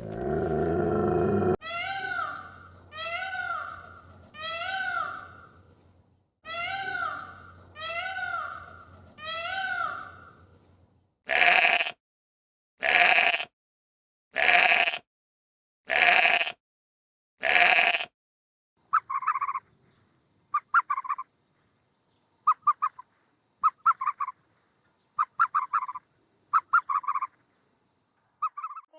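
Several different animals calling in turn: first six repeated pitched calls in two groups of three, then five short harsh calls about a second and a half apart, then a string of brief clipped calls near the end.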